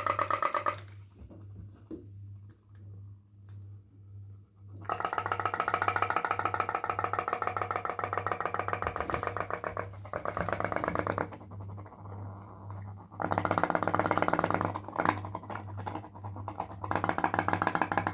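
Homemade pop-pop boat's tea-light-heated boiler buzzing in rapid, even pulses, cutting out for a few seconds at a time and starting up again. The boiler leaks steam around its edges.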